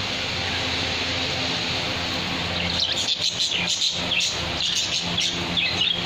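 Caged green parakeet chirping in a rapid series of short, high calls that start about halfway through, over a steady low hum.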